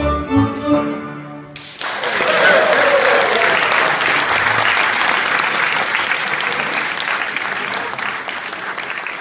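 A Hungarian gypsy ensemble of violin, clarinet, keyboard and double bass plays its last notes. The music cuts off abruptly about a second and a half in, and an audience applauds, the clapping slowly fading.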